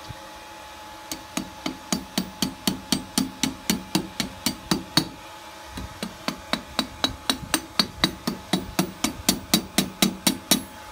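Hand hammer striking red-hot steel over the conical horn of an anvil, a steady run of blows about three or four a second starting about a second in, with a brief pause midway. The smith is forming the round loop of a bottle opener's head.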